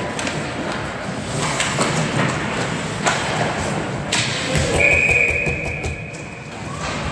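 Ice hockey play: sticks, puck and skates clacking and scraping on the ice, then a single shrill whistle blast lasting about two seconds, just past the middle.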